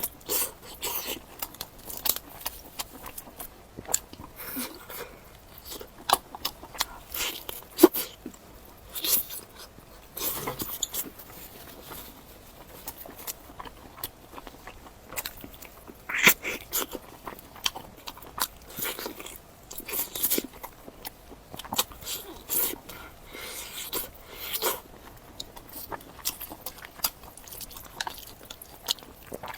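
Close-miked eating: a person biting and chewing food, with irregular wet mouth clicks and smacks and occasional crunches.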